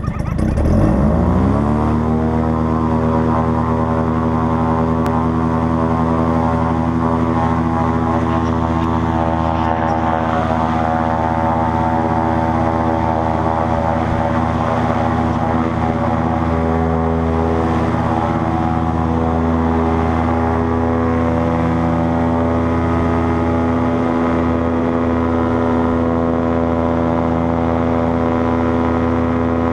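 Paramotor trike engine and propeller revving up sharply in the first second or two, then running steadily at full power through the takeoff run and climb-out.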